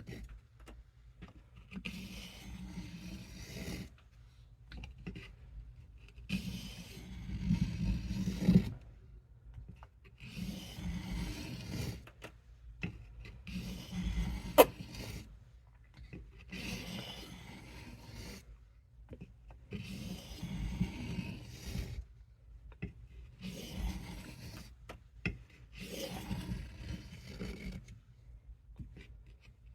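Knife blade drawn in long strokes across a hard sharpening stone wetted with water, a rasping scrape repeated about every two to three seconds. One sharp click about halfway through.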